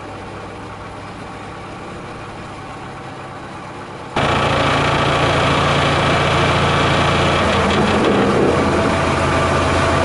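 An engine idling steadily with a low hum. About four seconds in it suddenly becomes much louder and fuller, and it keeps running evenly.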